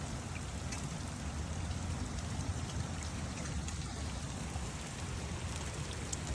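Steady rain falling, with scattered drops striking nearby surfaces.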